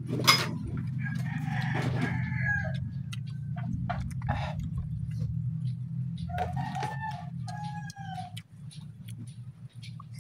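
Rooster crowing twice, about a second in and again past six seconds, over a steady low hum, with scattered light clicks.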